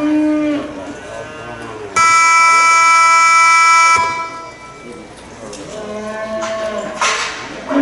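A loud, steady horn-like tone about two seconds in, lasting two seconds and cutting off sharply. Before and after it come drawn-out calls whose pitch rises and falls.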